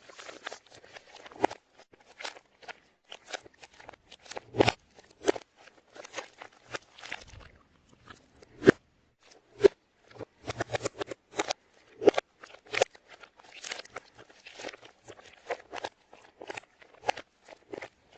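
Irregular crunching and clicking noises, dense and uneven, with several louder sharp clicks among them, played backwards.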